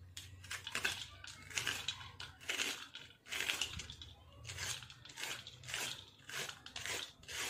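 Vegetable peeler scraping the ridged skin off a bitter gourd (karela) in quick repeated strokes, about two a second, each a short rasping scrape.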